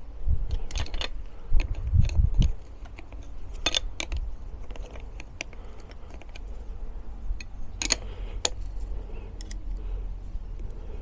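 A spanner clinking and clicking on the rear shock absorber's mounting bolt as it is tightened by hand: a few scattered sharp metallic clicks, the clearest about a second, four seconds and eight seconds in, over a low handling rumble.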